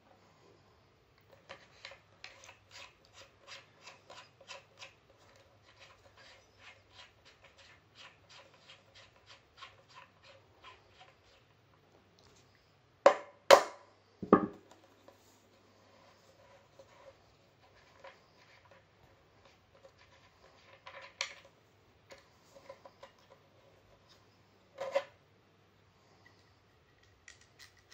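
Hand screwdriver work on a turntable plinth: light, regular clicks about three a second for several seconds, then three sharp knocks about halfway through and a couple more near the end as the screwdriver and parts are handled against the plinth.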